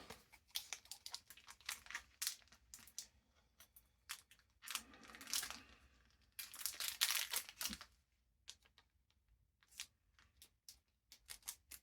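Crinkly plastic packaging and trading cards being handled: scattered soft clicks and rustles, with two longer spells of crinkling and tearing about five and seven seconds in.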